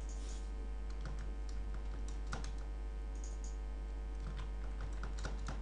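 Computer keyboard and mouse clicks, scattered light taps bunched near the middle and near the end, over a steady low electrical hum.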